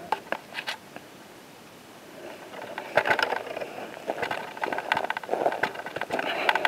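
Footsteps and rustling through dry brush, with branches scraping and twigs crackling. A few clicks come at the start, and about two seconds in a dense, busy crackle of scrapes sets in and carries on.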